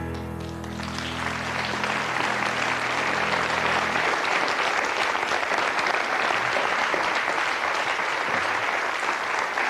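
Studio audience applauding steadily at the end of a song, over the last low chord of a grand piano that rings on and dies away about four seconds in.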